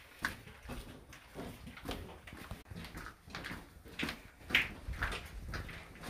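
Footsteps of several people walking on the hard floor of a narrow mine tunnel, a loose run of short, uneven steps with no clear rhythm.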